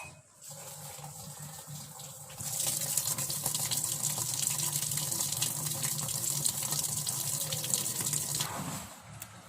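Washing machine starting its cycle: a low steady hum, then water pouring into the drum through the inlet with a loud steady rush for about six seconds before it stops near the end.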